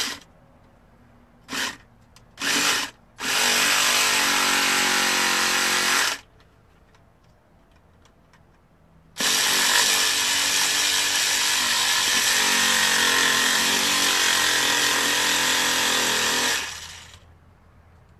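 Battery-powered pumpkin-carving tool running as it cuts into a pumpkin: two short bursts, then a run of about three seconds, and after a pause a longer run of about seven seconds.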